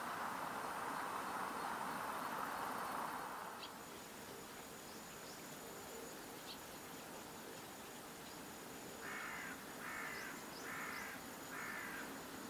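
A crow cawing four times in an even series, each call harsh and about half a second long, over a steady high insect buzz. A rushing noise fills the first few seconds, then drops away.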